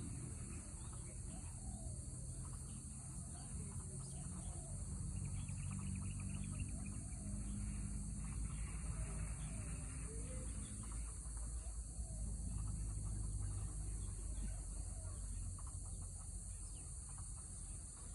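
Outdoor ambience: a steady high-pitched insect drone, with faint short bird calls scattered through and a low rumble underneath.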